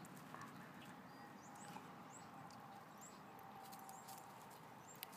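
Near silence, with a few faint, short, high chirps and soft clicks scattered through it.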